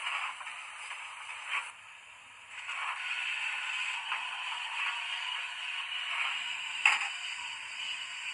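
Digital sound decoder of a Fleischmann P8 model steam locomotive playing a thin, tinny steam hiss through its small speaker, with a couple of sharp clicks. The hiss drops away briefly about two seconds in and comes back steadily; the sharpest click, near seven seconds, is the loudest moment.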